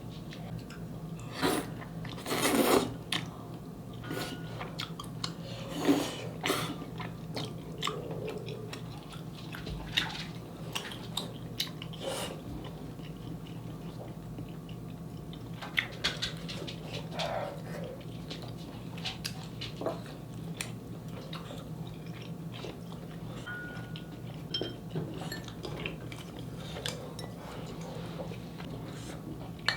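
Close-up eating sounds: chewing and biting into dakgalbi, with chopsticks or spoons clicking and scraping against the pan in scattered short knocks, over a steady low hum.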